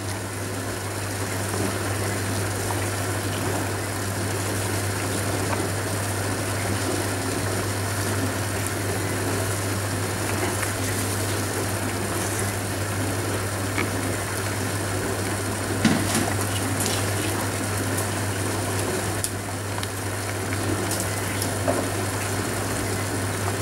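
Salted water at a rolling boil in a stainless steel pot, blanching borage leaves: a steady bubbling noise over a steady low hum. There is a single light knock about sixteen seconds in.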